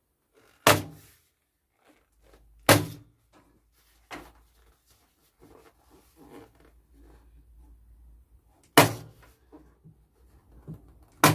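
Four sharp thuds, each followed by a short ring, heard about a second in, near three seconds, near nine seconds and at the very end, with a softer knock in between. These are objects being knocked or set down hard on a workbench.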